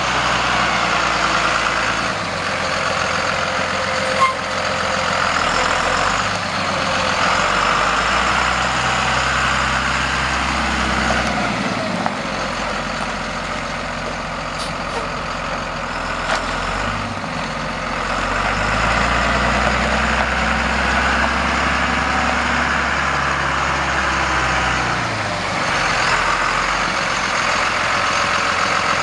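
Cummins ISB 5.9-litre inline-six diesel of a 1999 Ford F800 flatbed truck running as the truck drives. The engine note rises and drops back several times as it pulls away and moves.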